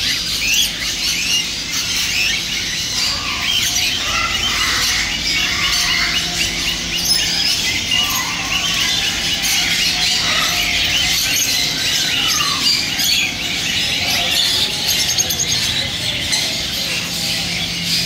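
Many caged pet birds, small songbirds and parrots together, chirping and squawking all at once in a dense, continuous chatter of high calls.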